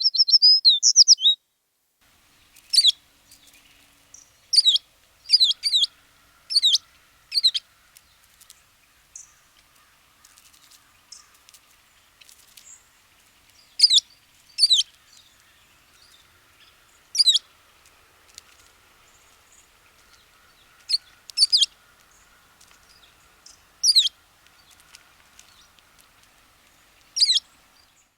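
American tree sparrow calling: a brief rapid twitter at the start, then a series of short, high, down-slurred notes, single or in quick pairs, every one to three seconds.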